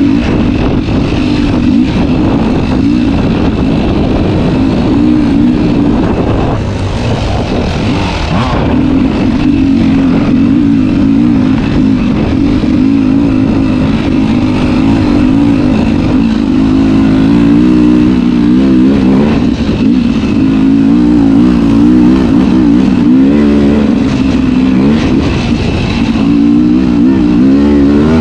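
Two-stroke dirt bike engine running hard without a break, its pitch rising and falling constantly with the throttle. The revs climb and drop more sharply in the second half.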